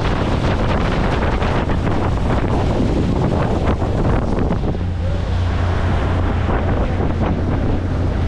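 A rented motorboat under way on a lake, with heavy wind buffeting the microphone over a steady low rumble and water rushing past the hull.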